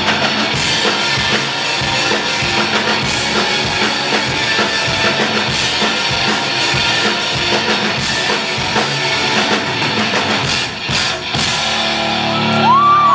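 Live rock band playing loud: electric guitar over a busy drum kit with bass drum, no singing. Near the end the band swells into a loud, sustained chord as the song closes.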